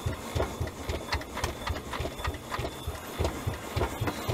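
1920 Huber steam traction engine running, its low beats coming in a quick, even rhythm with light metallic clicks over them.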